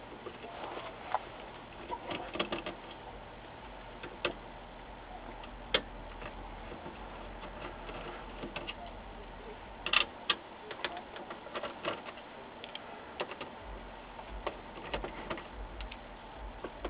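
Phillips screwdriver backing out the screws that hold a power supply board in an LCD monitor's sheet-metal chassis: scattered light clicks and taps of the tool and screws on metal, with a louder cluster of clicks about ten seconds in.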